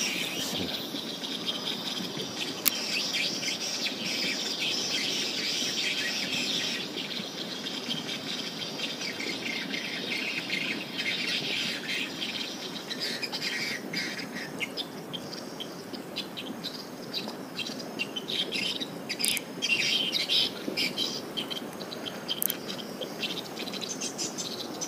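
Swiftlets twittering in a dense, continuous chorus of short high chirps, with insects trilling along with them.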